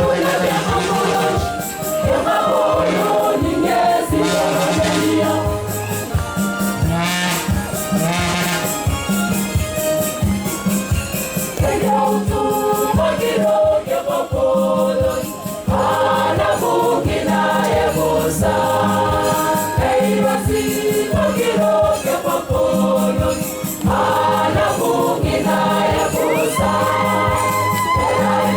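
Church choir singing a gospel hymn for the procession of the Word, with shakers or rattles keeping a busy beat over a steady low bass line.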